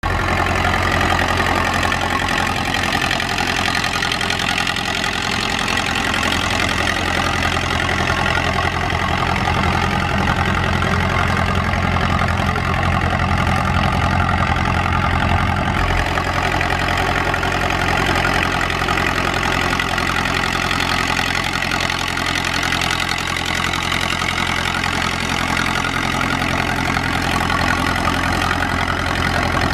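Hanomag Barreiros R-545 tractor's diesel engine running steadily under load while pulling a plough. Its low note shifts slightly about halfway through.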